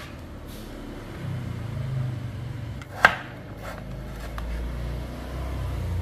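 Kitchen knife cutting raw potato on a wooden cutting board, with one sharp knock of the blade on the board about three seconds in and a few lighter taps after it. A low rumble runs underneath.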